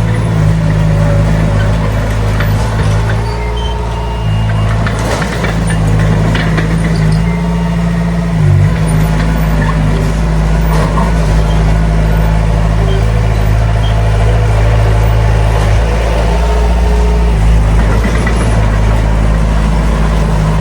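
Heavy diesel engine of earthmoving machinery running steadily under load, its pitch dipping briefly about eight seconds in.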